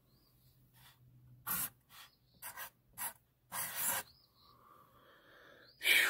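Felt-tip marker scratching on a wooden board: about six short strokes over two and a half seconds as one number is crossed out and another written. A louder breath comes near the end.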